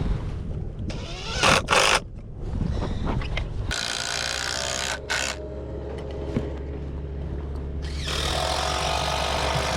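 Construction-site machinery: a steady low engine drone sets in about four seconds in, with louder stretches of noise coming and going over it, and a couple of short loud bursts before that.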